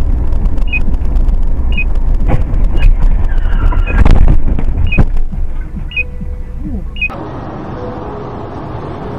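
Dashcam recording from inside a moving car: heavy road and engine rumble with a short high beep about once a second. Loud crashing impacts come about four and five seconds in. Near the end it cuts to quieter, steady road noise from another car.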